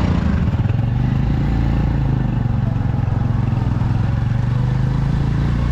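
Small two-wheeler engine running steadily while riding, a loud, even low engine note with road and air noise over it.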